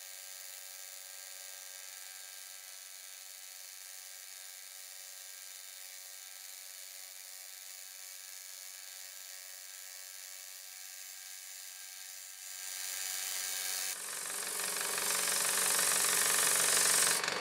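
Hegner scroll saw running with an abrasive strip clamped in place of the blade, sanding the scorched edges of fretwork cut-outs. It is played back fast-forwarded at four times speed, so it is a steady, high-pitched machine hum with nothing low in it. In the last few seconds it grows louder and fuller.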